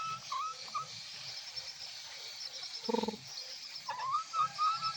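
Young rooster calling: a short pulsed cluck about three seconds in, and thin, high, wavering calls near the start and again near the end. Faint high chirping runs in the background.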